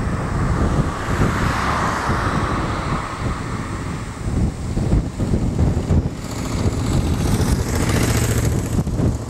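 Engines of a convoy of military trucks and escort motorcycles approaching along a road, with wind buffeting the microphone. The traffic noise swells with a brighter hiss near the end.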